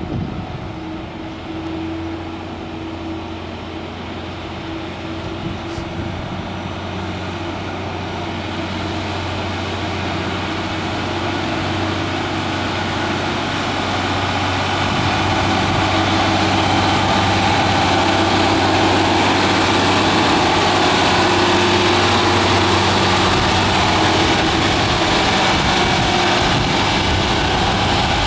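MAN TGS 32.400 concrete mixer truck's six-cylinder diesel engine running steadily, growing gradually louder over the first half and then holding even.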